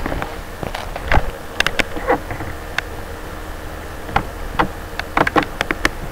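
A string of short, sharp clicks and taps at irregular intervals, about a dozen of them, over a steady low hum.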